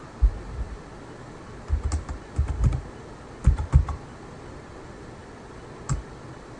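Computer keyboard being typed on: several key presses in small uneven clusters as a six-digit number is keyed in, then a single key press near the end as the entry is completed.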